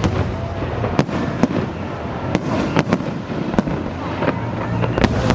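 Fireworks going off in quick succession: sharp, irregular bangs and cracks, several a second, over a continuous rumble and crackle.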